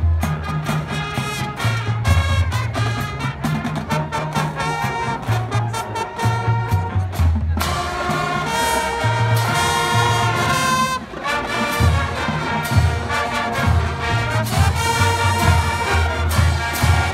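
Large high school marching band playing a field show: trumpets and trombones carry the melody over a rhythmic line of low brass notes.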